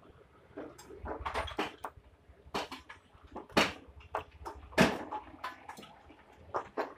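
Irregular clicks, taps and knocks of a small circuit board being handled and set against the work surface while a diode is desoldered from it. The loudest knocks come about three and a half and five seconds in.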